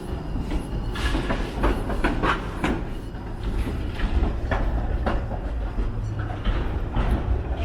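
Strong wind buffeting the camera's microphone: a constant low rumble with irregular short clicks and rattles over it.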